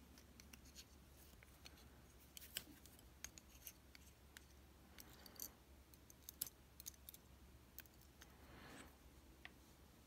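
Near silence with faint, scattered metallic ticks and light scrapes: steel tweezers picking the small pins out of a gutted Dorma 3003 lock cylinder and setting them in a metal pin tray.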